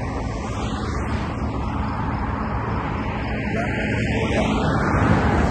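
Cars driving at speed with windows open: a steady rush of wind and road noise over a low engine rumble, growing a little louder toward the end.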